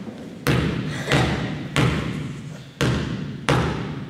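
A basketball bouncing hard on a gym floor five times, each bounce a sharp thud followed by a hall echo, roughly two-thirds of a second apart with a slightly longer pause near the middle.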